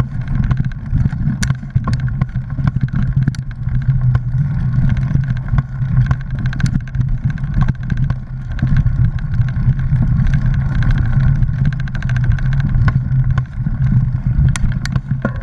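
Mountain bike rolling over a leaf-covered dirt trail, heard through a GoPro action camera mounted on the rider or bike: a steady low rumble of tyres and wind, with scattered sharp clicks and rattles as it goes over bumps.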